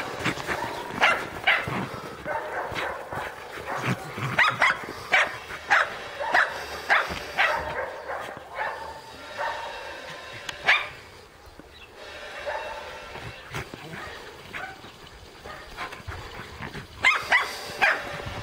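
Scottish Terrier barking in play, repeated short barks in quick runs, with a quieter spell in the middle and another run near the end.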